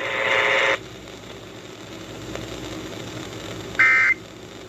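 Radio hiss after a brief noisy burst that cuts off under a second in, then near the end a short burst of Emergency Alert System digital data tones, the first of three identical bursts typical of the end-of-message code that closes an alert.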